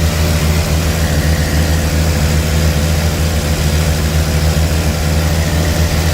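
A 1982 Ford Granada's straight-six engine running at a steady fast idle on the choke, which is slow to open.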